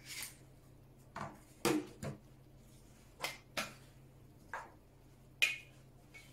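A string of about nine separate short clicks and knocks from handling a gas airsoft pistol: the STTi SP8's magazine is taken out, the pistol and magazine are set down on a table, and the cap is pulled off a can of green gas.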